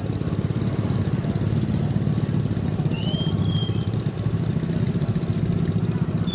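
A small engine running steadily at idle, with a fast, even low pulse.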